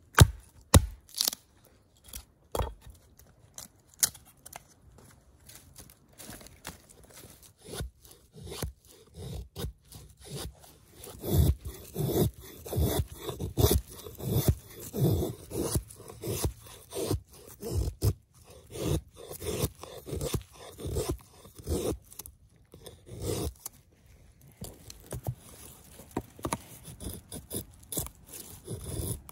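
A few sharp axe blows into wood, then a run of repeated scraping strokes, about two a second, as a dry stick is shaved against the blade of a hand-forged axe to make feather sticks.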